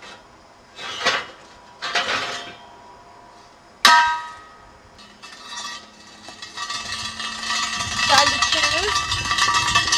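Steel wheel rims clanking against each other as they are pulled from a scrap pile, with knocks about one and two seconds in and a loud ringing metallic clang about four seconds in. A longer metallic rattling and scraping follows in the second half.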